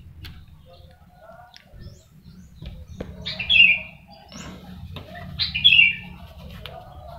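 A songbird calling twice, a short chirpy phrase each time, about three and a half seconds in and again about two seconds later, over a steady low hum.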